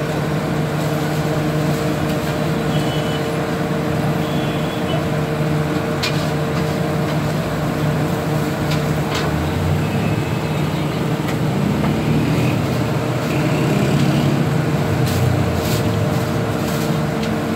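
Steady hum of street traffic and engines, with one vehicle's engine rising in pitch about halfway through. Now and then come sharp clicks of a metal spatula on the griddle, several near the end.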